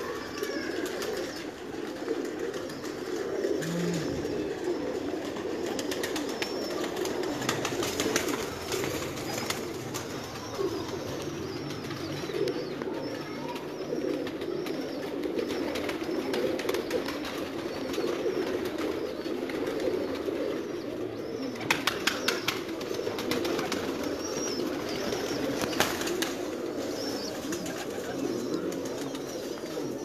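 A loft full of domestic pigeons cooing together in a steady, continuous chorus. A quick run of sharp clicks about two-thirds of the way through.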